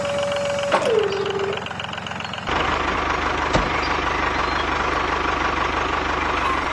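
A steady whine drops sharply in pitch about a second in and fades. At about two and a half seconds a tractor engine sound starts, a steady, evenly pulsing rumble, with a single click about a second later.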